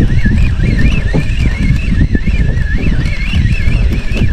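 Boat engine running under way, with wind buffeting the microphone and a high whine that wavers up and down in pitch about twice a second.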